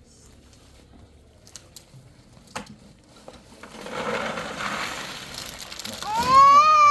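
Crinkling, rustling noise for a couple of seconds, then near the end a loud, drawn-out cat meow that rises and arches in pitch.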